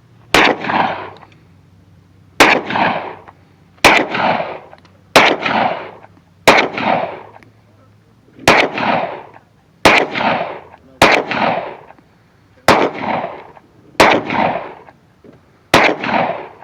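Gunshots fired one at a time, eleven shots about one to two seconds apart at an uneven pace, each followed by a long echo.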